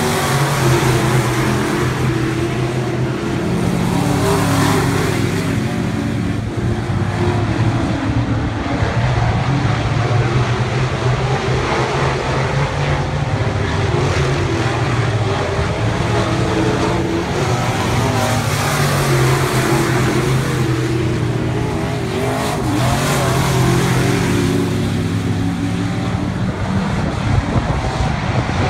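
Several IMCA SportMod dirt-track race cars running laps, their V8 engines droning together, the sound swelling and fading as cars come past.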